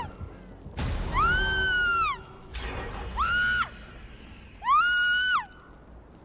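Three long, high-pitched screams, each rising, held and then dropping away. A short harsh rush of noise comes just before the first and again before the second.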